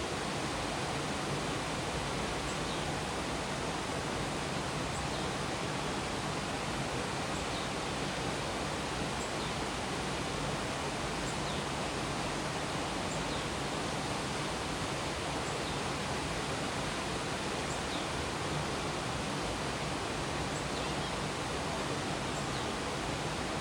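Minoh Falls, a 33 m waterfall, pouring steadily into its pool: a constant, even rush of falling water.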